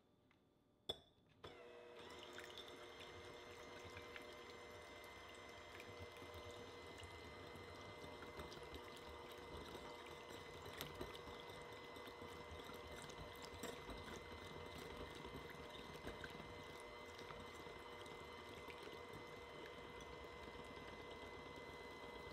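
A click, then an electric hand mixer starts about a second and a half in and runs steadily with a constant motor hum, its beaters whisking liquid egg whites in a bowl at the start of a meringue.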